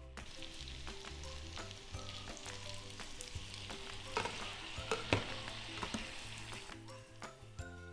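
Tortellini deep-frying in a pot of hot vegetable oil, a steady sizzle, with a few sharp clinks of the wire spider strainer against the pot about four to five seconds in. Soft background music plays underneath.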